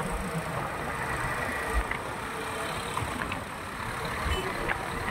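Steady road traffic: engines and tyres of passing cars and trucks on a busy road, with a few short low thumps.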